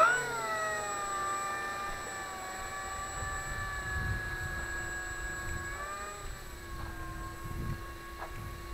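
A small motor whining steadily. Its pitch eases down a little after spooling up, holds, then wavers briefly about six seconds in, over low rumbling.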